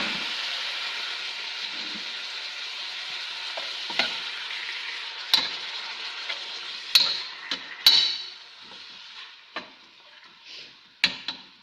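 Chicken pieces frying in a pan with onions, sizzling while being stirred, with a utensil knocking against the pan several times. The sizzle dies down gradually.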